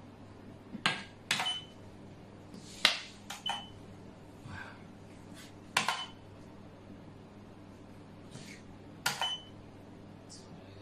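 Xiangqi pieces clacked down on the board and chess clock buttons pressed: sharp clacks, several in quick pairs, a few followed by a short high beep.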